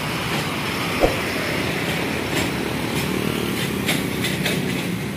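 Heavy tractor-unit truck towing an empty flatbed trailer driving past and away, its engine and tyres blending into steady road traffic noise. A single sharp thump comes about a second in, and a few lighter clacks of rattling follow over the next few seconds.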